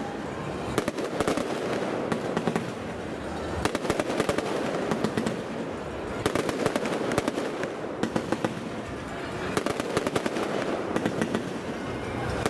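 Aerial fireworks crackling overhead: clusters of rapid, sharp pops, a fresh burst of crackle every second or two, over a steady background din.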